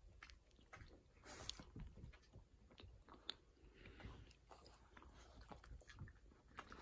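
Dog faintly chewing and crunching a macaron, with small irregular bites and mouth clicks.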